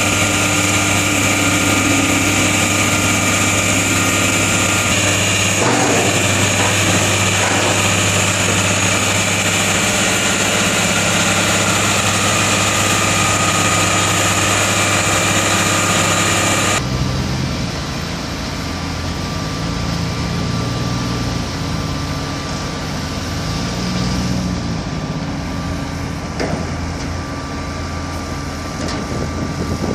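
Diesel engine of a truck-mounted Foremost Barber DR-12 dual-rotary drill rig running steadily, with a high steady whine over it. About 17 seconds in the sound drops abruptly to a quieter, lower engine running without the whine.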